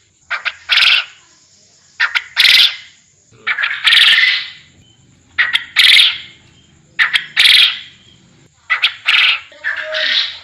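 Garden quail (puyuh kebon) calling as a lure call. A phrase of a few quick short notes leads into a longer, louder note, repeated about every one and a half seconds.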